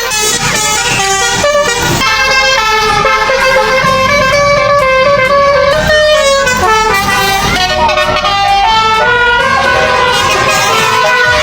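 Basuri multi-tone telolet air horn on an odong-odong playing a melody, several horn tones sounding together and stepping from note to note without a break.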